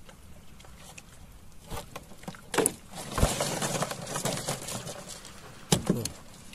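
Knocks and water splashing in the bottom of a small fishing boat, as a freshly caught sea snake still thrashes. The splashing is busiest about halfway through, with one low thump, and two sharp knocks come near the end.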